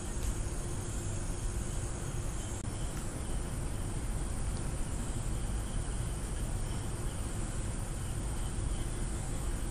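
Steady background noise from an open microphone: a low hum under an even hiss, with a faint high trill like crickets that weakens about two and a half seconds in.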